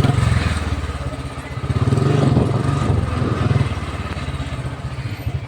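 Royal Enfield Bullet's single-cylinder engine running while the motorcycle is ridden, firing in quick, even pulses. The engine grows louder for a second or two in the middle, as if given more throttle.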